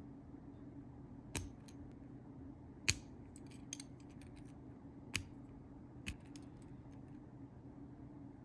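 Small plastic building-brick parts clicking as tyred wheels are pressed onto a toy truck: about five sharp clicks at uneven gaps, with some lighter ticks, over a faint steady low hum.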